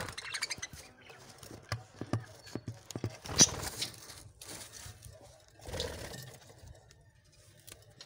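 Small scattered clicks and scratches with two short rustling bursts, from a budgerigar clambering onto the entrance of a clay nest pot.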